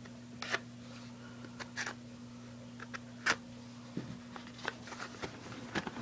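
A pocketknife blade slicing through packing tape and brown paper wrapping, with the paper crinkling and rustling in short scattered bursts. A steady low hum runs underneath.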